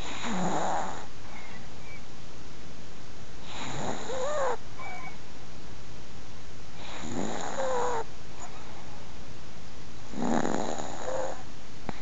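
A 15½-year-old Chihuahua snoring in its sleep: four snores, about one every three and a half seconds, two of them with a thin squeaky whistle.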